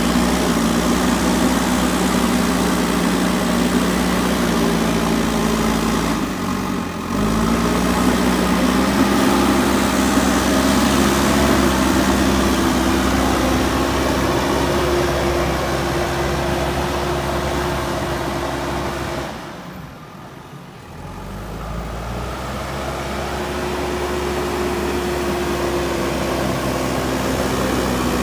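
Diesel engine of a JCB 3DX backhoe loader running steadily while it works. The engine sound dips briefly about seven seconds in, fades low about two-thirds of the way through, then comes back with a higher engine note.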